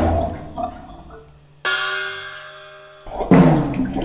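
Contemporary chamber ensemble music: a percussion hit at the start dies away, then about a second and a half in a struck bell-like metal instrument rings with several steady tones, fading slowly. Near the end the ensemble comes back in louder.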